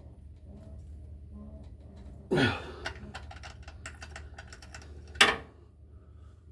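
Metal hand tools being handled: a loud clatter about two seconds in, a run of quick clicks, then a sharp knock about five seconds in, over a low steady hum.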